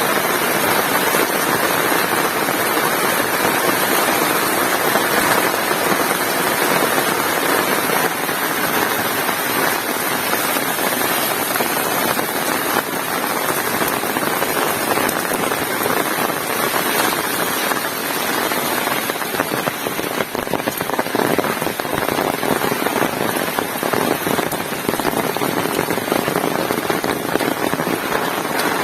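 Heavy rain falling steadily: a dense, continuous patter of drops.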